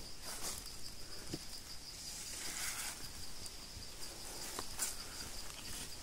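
A steady high-pitched chorus of insects droning without a break, with a few faint rustles and clicks.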